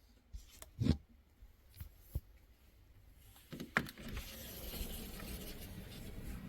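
Several short knocks and rubs in a quiet room, the loudest about a second in and another near four seconds. From about four seconds in a steady low noise with a hiss sets in and holds.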